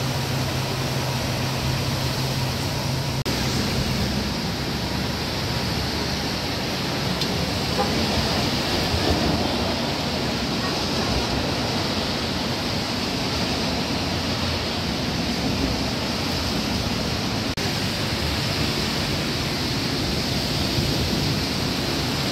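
Steady rush of water: rain and car tyres swishing through floodwater on a flooded street. A low hum underneath stops about four seconds in.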